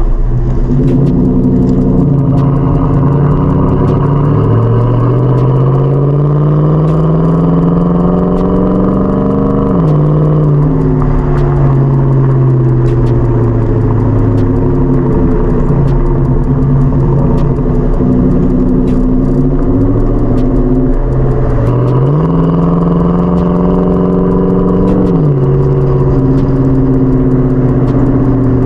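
2021 Nissan Titan Pro-4X's 5.6-litre V8 heard at the exhaust tip through Flowmaster Super 10 mufflers joined by an X-pipe, while driving. The note climbs under acceleration and drops sharply at a gear change about ten seconds in. It eases to a steady cruise, then climbs again and drops at another shift about twenty-five seconds in.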